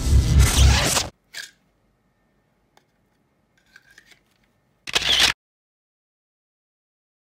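Intro music cuts off about a second in. Later come light plastic handling noises, and about five seconds in a single short, loud scrape as the flashlight shifts against the kydex pouch and its 3D-printed PLA retention insert.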